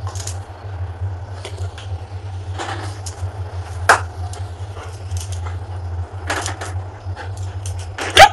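A corgi's claws clicking and scuffing lightly on a tiled floor now and then, over a steady low hum. There is one sharp click about four seconds in, and a brief louder sound just before the end.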